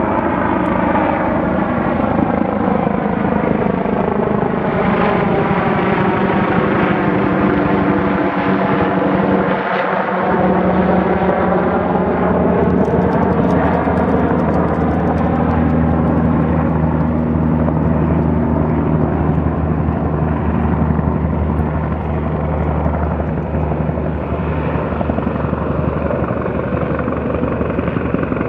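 Sikorsky S-76B twin-turbine helicopter flying in to land, its rotor and turbine noise continuous and loud. A sweeping, phasing sound falls in pitch to its lowest point about ten seconds in as the helicopter passes closest, then rises again. After that it runs on with a steady low rotor hum.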